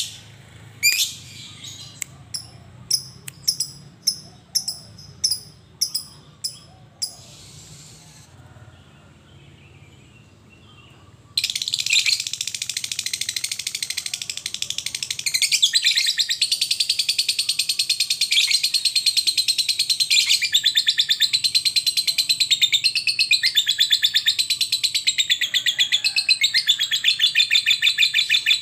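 Lovebird giving a string of sharp single chirps about once a second, then after a short lull breaking into a long, rapid chattering trill, the 'ngekek' song, which grows louder a few seconds after it starts.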